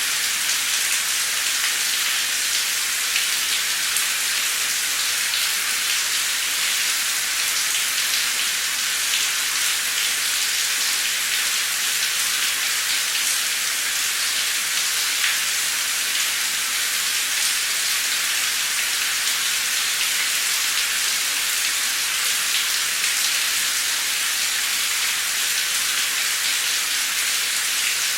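Heavy, torrential rain pouring steadily, a dense even hiss with scattered sharper drop ticks.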